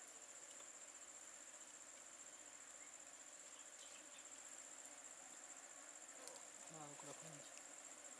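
Faint, steady high-pitched insect chirring, with faint voices briefly about two-thirds of the way in.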